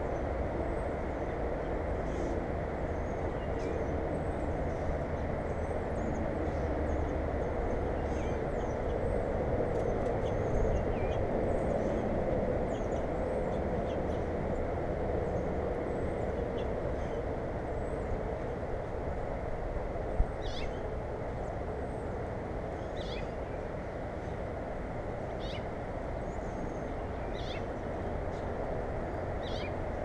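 Short, high bird calls repeated every two or three seconds, mostly in the second half, over a steady low rumble.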